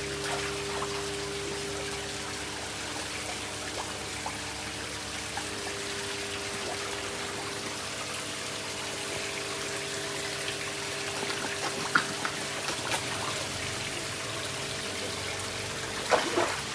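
Koi pond waterfall trickling and splashing steadily, with a low steady hum underneath. A few sharper splashy sounds stand out about twelve seconds in and near the end.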